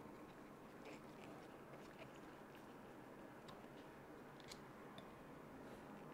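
Very faint small clicks and scratches of a hand driver turning out the screws that hold the plastic bumper on an RC truck, a few sharper ticks among them.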